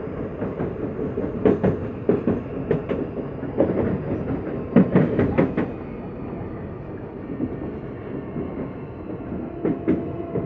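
Inside a CPTM Series 8500 electric commuter train car in motion: a steady running rumble, broken by clusters of sharp clacks from the wheels passing over rail joints, most of them around the first few seconds and in the middle, with a pair near the end.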